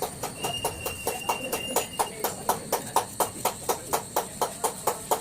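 A quick, even series of sharp knocks, about four or five a second.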